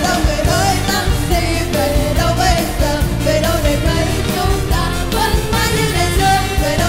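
Live pop band playing an upbeat instrumental passage with a steady drum beat and a wavering melodic lead line.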